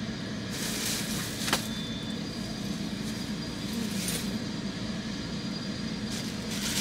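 Steady low hum of vehicle noise, with a few brief clicks and clatters.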